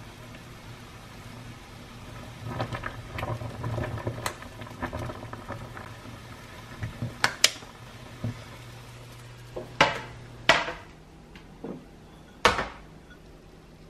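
Kitchen dishes and utensils clattering, with several sharp clinks and knocks in the second half, the loudest near the end. A low steady hum runs under it and stops about ten and a half seconds in.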